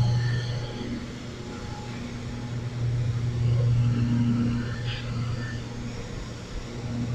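Street sweeper truck running as it sweeps construction dirt and rocks off the road: a steady low engine drone that swells and fades as it moves along.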